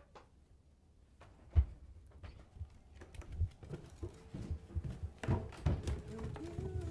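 Soft, irregular thuds of footsteps climbing carpeted stairs, with one sharp louder knock about a second and a half in. A held musical note comes in faintly near the end.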